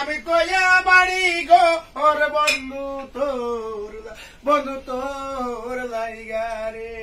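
A man singing without accompaniment, in sliding, drawn-out notes with short breaks. The second half is one long held note.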